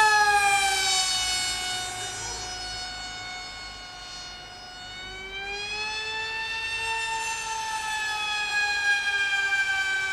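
Electric motor and propeller of a Z84 RC flying wing whining in flight: one high-pitched note that drops in pitch and fades over the first few seconds, then swells and rises again about halfway through before slowly falling near the end.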